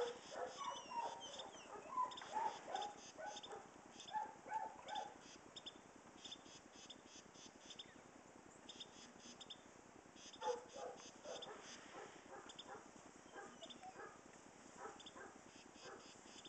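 Young Giant Schnauzers whimpering and yipping in short high calls during the first five seconds and again briefly around ten seconds in, over the faint crunch of paws in deep snow.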